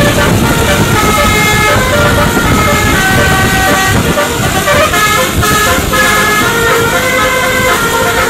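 Telolet basuri multi-tone musical horn on a tour bus playing a tune: held chords of several tones that step from note to note about every half second, over a low rumble of engine and road noise.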